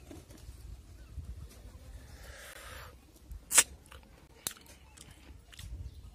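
Mouth sounds of someone eating cooked ghonghi (freshwater snails): a soft slurp about two seconds in and chewing, with a sharp click about halfway through that is the loudest sound and a smaller click a second later.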